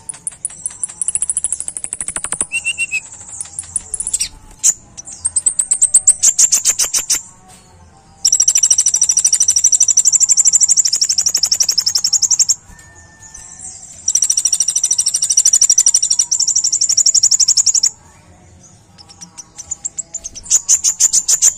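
Male kolibri ninja (purple-throated sunbird) singing in rapid, high-pitched trills of repeated notes. Two long unbroken trills of about four seconds each come in the middle, with shorter chattering bursts before, between and after them.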